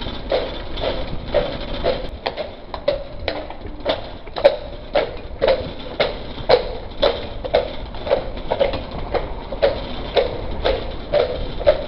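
Horse's hooves clopping at a steady walk, about two strikes a second, over a low rumble.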